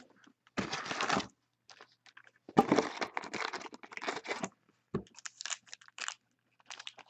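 Wrappers of basketball card packs being torn open and crumpled, in several short bursts of ripping and crinkling.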